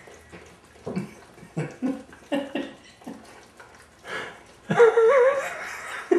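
A small spaniel howling, one loud, wavering call lasting about a second, near the end, after a few short, quieter vocal sounds.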